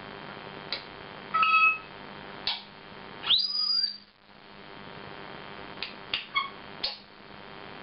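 African grey parrot whistling. A short whistle at a steady pitch comes about a second and a half in, a longer whistle rises to a high held note around three and a half seconds, and a short call follows near the end, with a few sharp clicks in between.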